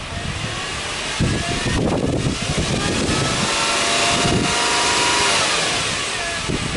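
Subaru Legacy B4 3.0R's 3.0-litre flat-six engine being free-revved while the car stands still. The engine climbs slowly in pitch for a few seconds, is held near the top, then drops back toward idle near the end.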